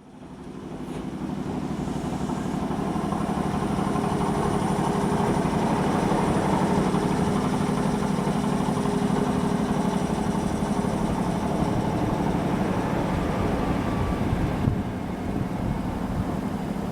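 Ex-Tokyu 5000 series electric train running and pulling away, with the steady whine of its right-angle cardan drive over the rumble of wheels and motors. The sound fades in over the first second or two and then holds.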